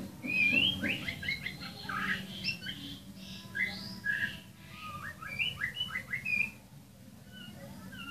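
Songbird chirping and whistling in a quick run of short notes that glide up and down, thinning out near the end, over a low steady hum.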